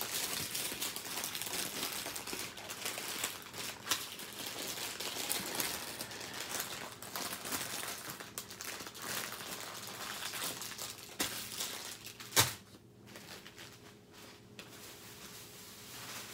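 Small plastic bags of diamond-painting drills crinkling and rustling as they are handled, with one sharp knock about twelve seconds in, after which the rustling goes quieter.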